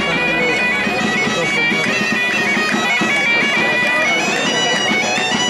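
Asturian bagpipe (gaita) playing a melody that moves in quick steps over a steady drone.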